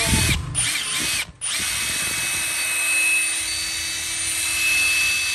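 Metabo HPT WH18DBDL2 18 V brushless impact driver run free with no load: two short trigger blips, then a steady whirring run with a constant high whine. No hammer blows are heard.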